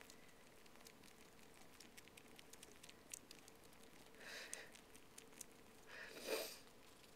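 Siamese kittens suckling on a plush toy squirrel: faint, quick wet clicks and smacks, with two short louder sounds about four and six seconds in.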